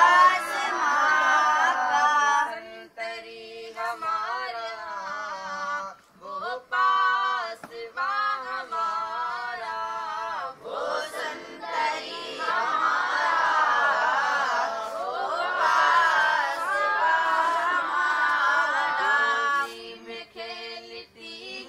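Boys chanting a song together in unison, taking turns with a single voice that sings lines alone: the group comes in near the start and again from about 11 to 19 s, with the lone voice between and near the end.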